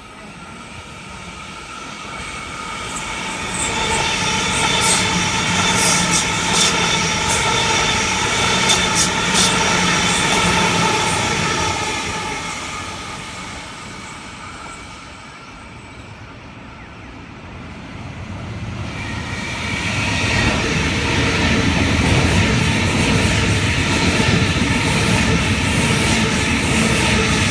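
Two Sydney double-deck electric trains going by one after another, each swelling up and fading: a steady motor whine over the rumble of wheels on rail, with a run of sharp clicks as the first passes. The second is a Waratah set running past close by.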